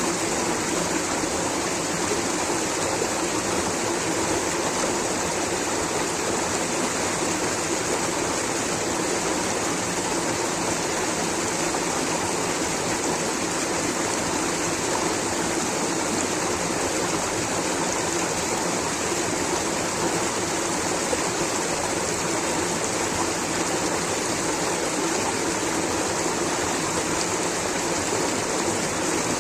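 Rushing water from a stream or waterfall, a steady, even rush that never changes.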